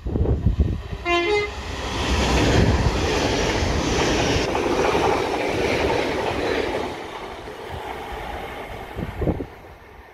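Great Western Railway Class 800 train sounding a short two-note horn about a second in, then passing at speed, its noise building and then fading near the end. Gusts of wind buffet the microphone.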